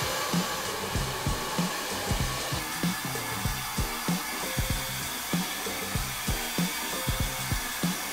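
Handheld hair dryer running steadily, blowing air through hair during a blow-dry. Background music with a steady beat plays underneath.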